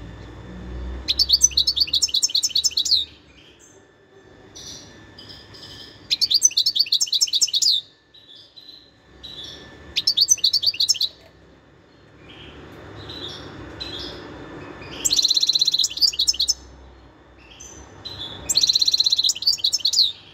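European goldfinch singing: five phrases of rapid, high twittering trills, each lasting one to two seconds, with softer scattered notes between phrases.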